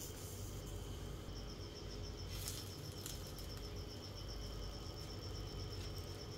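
A high, fast-pulsing trill like a cricket's starts about a second in and keeps going evenly. A few light taps sound as rice-paper rolls are set down in a nonstick grill pan.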